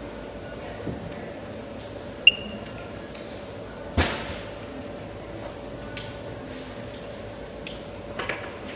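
Scattered clicks and knocks over a steady hum, with a short ringing metallic ping about two seconds in and a louder knock about four seconds in.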